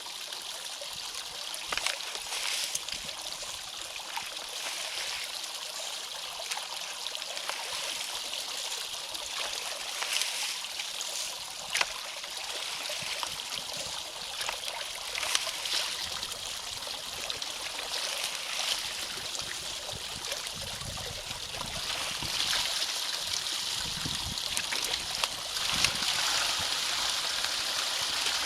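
Water in a drainage ditch flowing and trickling: a steady rush with scattered small splashes and gurgles. Some low rumbles come in past the middle, and the flow gets louder over the last few seconds.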